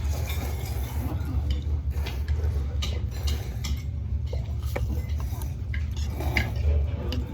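Eating utensils clicking and clinking against a bowl as noodles are stirred and eaten, a scatter of short irregular knocks over a steady low hum.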